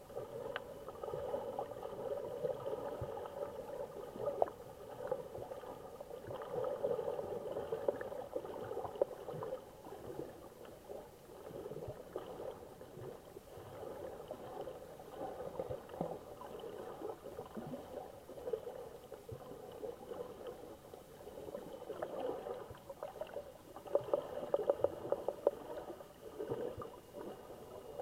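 Muffled underwater noise picked up by a camera in a waterproof housing: a steady murky hum that swells and fades, with a few faint clicks and a thin high tone in the background.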